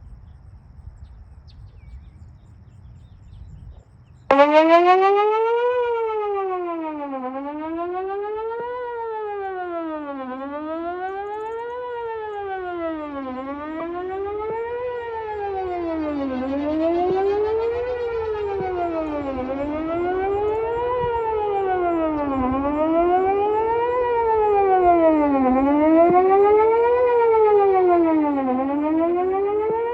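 Whelen 4008 electronic outdoor warning siren starting suddenly about four seconds in and sounding a wail, its pitch sweeping up and down about once every three seconds, heard from a distance.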